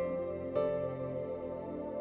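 Soft ambient background music: sustained, slowly changing tones with a gentle new note about half a second in.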